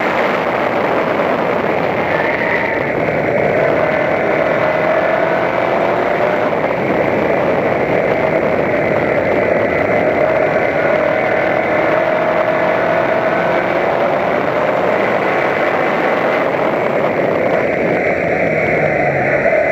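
Toyota Corolla Levin race car's engine running hard under racing, heard from an onboard camera with heavy wind and road noise over it; the engine note slowly rises and falls as the car accelerates and eases through the corners.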